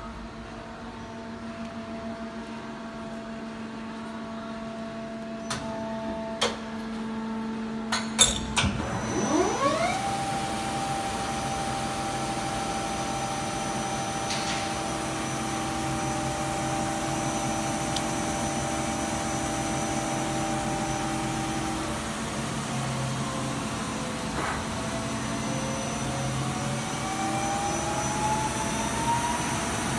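Daewoo Puma 10S CNC lathe running: a steady machine hum, a few sharp clicks and clunks about six to eight seconds in, then a motor whine that rises in pitch over about two seconds and holds steady. Near the end a second whine climbs slowly in pitch.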